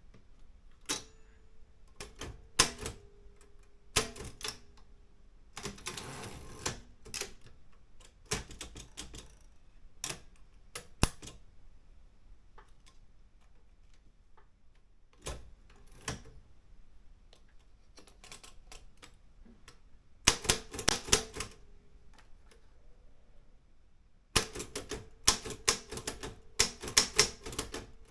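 Olympia M8 manual typewriter being typed on: single key strikes with pauses between them, then quicker runs of keystrokes about twenty seconds in and again near the end.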